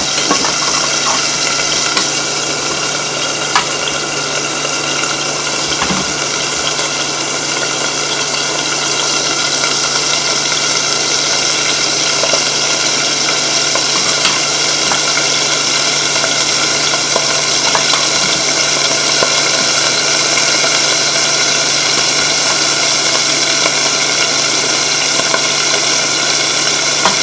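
Salmon sizzling steadily as it fries slowly in a covered pan over medium heat, a constant hiss with a steady hum beneath it. A few light clinks of a spoon on a plate.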